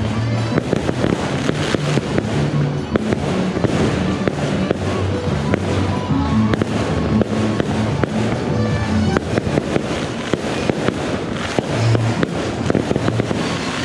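Fireworks going off, with dense rapid cracks and pops throughout, over loud music with a bass line.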